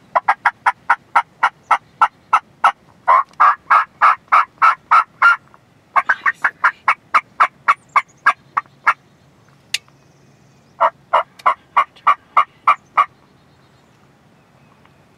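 A freshly shot wild turkey gobbler flopping on the ground, its wings beating in three runs of rapid, even strokes at about six a second. The runs last about five, three and two seconds, with short pauses between them. A single sharp click comes about halfway through.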